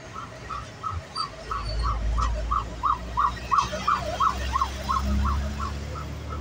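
Rapidly pulsing emergency-vehicle siren, about three short beeps a second, growing louder to a peak midway and fading toward the end, over the low rumble of the vehicle's engine and road noise.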